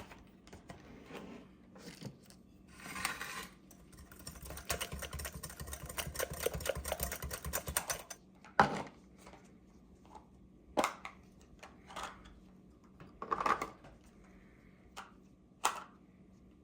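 Pudding mix and milk being whisked in a bowl: a quick run of rapid ticks for about four seconds, followed by several separate clinks and knocks of kitchen utensils.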